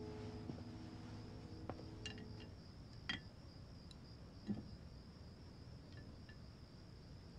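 Steady high cricket chirring, with the last held notes of background music dying away over the first two seconds or so. A few light clinks of wooden chopsticks and a china plate come about three and four and a half seconds in.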